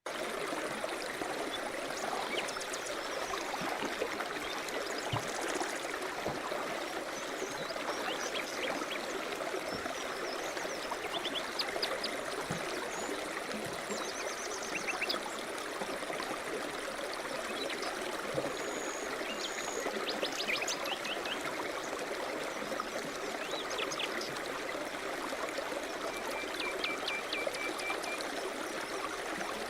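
River rapids rushing steadily, with small birds chirping in short, quick high trills and the odd whistled note now and then.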